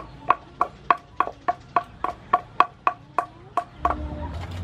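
Wooden pestle pounding salad vegetables in a wooden mortar: a steady run of about a dozen knocks, roughly three a second, each ringing briefly, stopping near the end.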